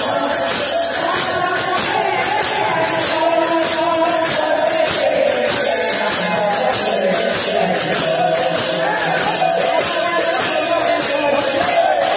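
Odia sankirtan devotional music: a wavering sung melody over a rapid, steady clash of small hand cymbals.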